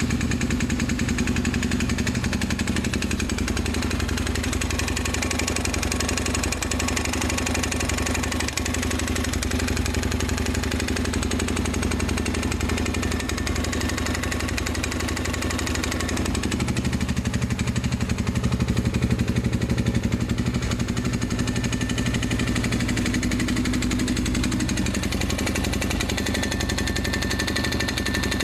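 Honda TRX400EX quad's single-cylinder four-stroke engine running steadily just after starting, with a repetitive knocking tick. It is making this noise about ten hours after a full rebuild, and the owner suspects damaged main bearings, perhaps from dirt getting past the air filter.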